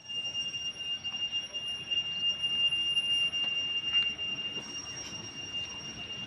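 A steady high-pitched whine with a fainter, higher overtone above it, over a background of outdoor noise with a faint knock about four seconds in.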